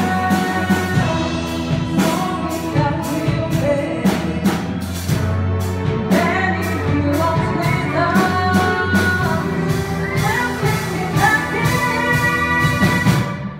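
A stage-musical ensemble number: a group of voices singing over accompaniment with a steady beat. The music drops away near the end.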